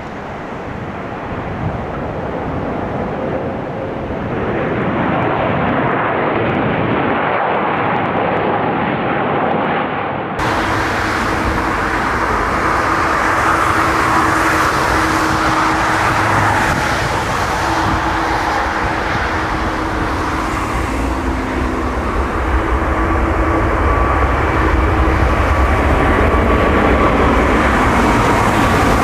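Airplane engines running loud with a steady rush of noise that slowly builds. About ten seconds in, the sound changes abruptly, as at a splice between two recordings, and a steady engine whine comes in.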